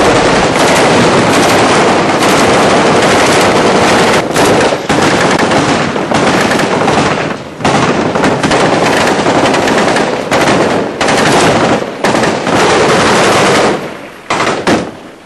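Sustained automatic gunfire: rapid, dense bursts with a few brief pauses, thinning out to scattered shots near the end.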